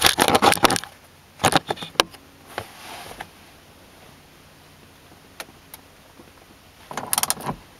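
Rubbing and clatter of a hand over the camera at first. Then scattered clicks and, near the end, a quick run of socket-ratchet clicks as the center bolt of a steering wheel puller is turned to press the wheel off its shaft.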